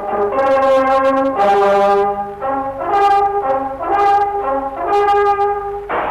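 Brass band music playing a melody of held notes, one after another.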